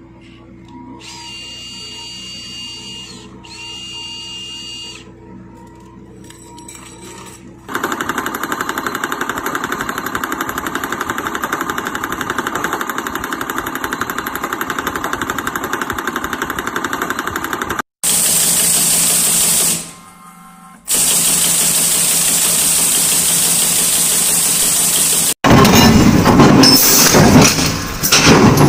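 Factory machinery in a string of short clips. A quiet stretch holds two high beeps. Then a wire-nail-making machine runs with a fast, even clatter, followed by steady loud machine noise and, near the end, the harsh, rough noise of steel plate being cut.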